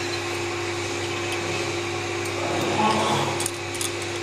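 Dry rice grains rustling and clicking lightly as a hand stirs them in a steel bowl, over a steady background hum and hiss.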